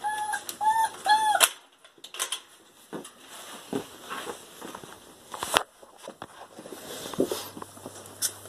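Dog whimpering: short, high whines that rise and fall, about four in quick succession, stopping after about a second and a half. After that come scattered soft clicks and knocks.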